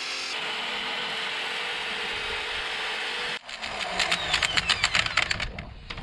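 Right-angle die grinder with a Tercoo bristle blaster disc running steadily against rusty steel, stripping the rust back to bare metal. After a sudden break about three and a half seconds in, rapid ticking of the bristles on the steel, with a whine falling in pitch as the tool slows.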